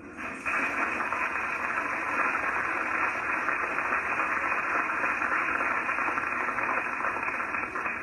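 Steady static hiss, starting about half a second in and holding level throughout.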